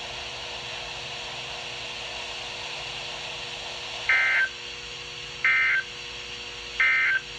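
Weather radio hiss, then three short, identical bursts of two-tone digital data a little over a second apart. This is the Specific Area Message Encoding (SAME) end-of-message code sent three times to close the weekly test broadcast.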